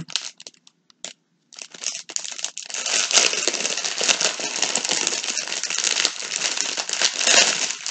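Clear plastic bag of diamond painting drill packets crinkling as hands open and handle it: a few light clicks at first, then continuous crinkling from about a second and a half in.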